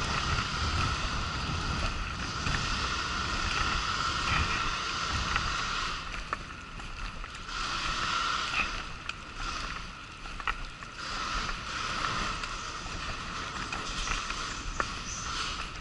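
A wheelchair rolling along a paved promenade: a steady rumble and hum from its running gear, with a few sharp clicks as it goes over bumps and joints.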